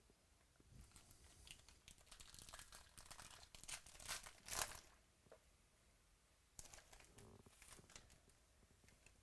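Faint crinkling and crackling of plastic or foil card packaging being handled and torn, in two spells. The loudest crackle comes near the middle.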